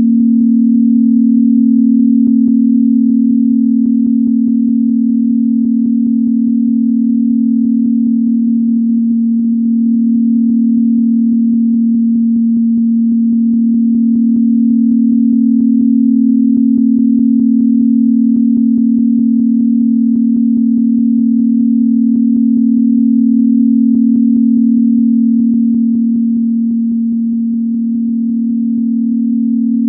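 A steady, low-pitched electronic sine tone held at one pitch, a synthesized 'healing frequency' tone. It swells and eases gently in loudness, with a slight dip near the end.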